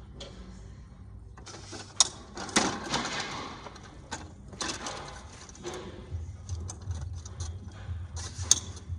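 Aluminium telescoping legs of a KingCamp bamboo folding camping table being adjusted for height: metal clicks and rattles as the legs are pulled out and locked, with two sharp clicks, about two seconds in and near the end.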